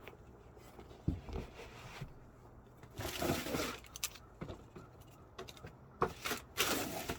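Handling noises from a pair of sneakers: a thump about a second in, a rustle around three seconds in, then a few quick knocks and more rustling near the end.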